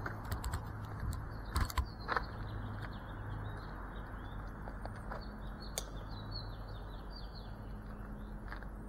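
Small birds chirping in quick, high calls over a steady low background hum, with a few sharp clicks and knocks in the first couple of seconds.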